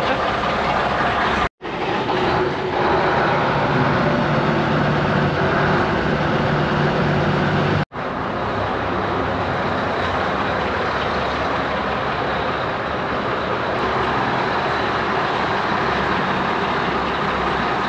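Scania 4-series V8 truck engine running steadily as the truck drives slowly through an enclosed concrete hall: a low, even rumble with a hiss over it. The sound breaks off for an instant twice, about a second and a half in and near eight seconds in.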